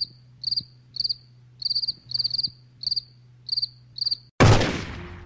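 Cricket chirping, about two chirps a second, each chirp a quick trill of a few pulses, over a faint steady low hum. Near the end a loud sudden burst of noise cuts in and fades.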